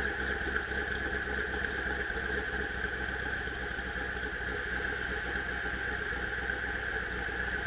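Lingenfelter-modified 2006 Chevrolet Corvette V8 idling steadily through a Corsa Indy Pro exhaust, heard from behind the tailpipes. A steady high-pitched hiss runs under the rumble.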